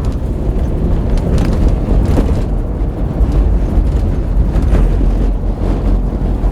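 A vehicle driving over a bumpy dirt road: a loud, steady low rumble from the running vehicle and wind buffeting the microphone, with a few faint knocks from the bumps.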